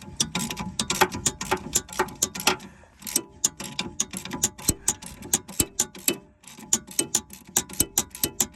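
Hand ratchet wrench clicking in quick runs of strokes with short pauses, loosening a nut on a car's front strut.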